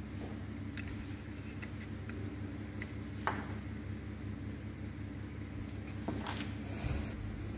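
A few light metallic clinks of engine parts and tools being handled during motorcycle clutch assembly, the loudest near the end with a brief ring, over a steady low hum.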